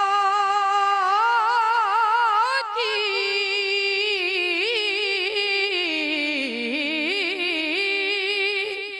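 A solo voice singing one long, drawn-out note of an Urdu devotional song, ornamented with a wavering vibrato. The pitch shifts about a third of the way in, sinks lower around six seconds in, comes back up, and fades away at the end.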